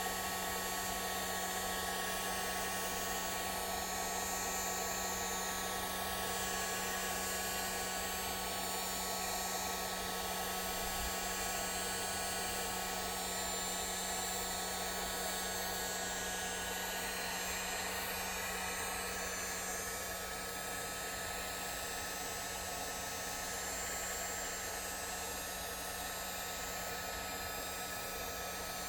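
Handheld hot-air blower running steadily: a constant motor hum with a whooshing rush of air.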